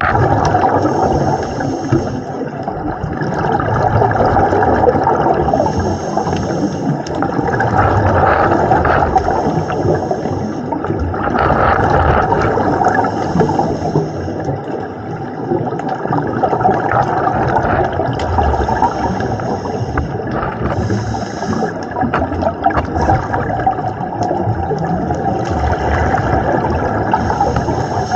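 Underwater ambience picked up by a diving camera: steady, muffled water rushing and gurgling, with a higher hiss that comes back every five or six seconds.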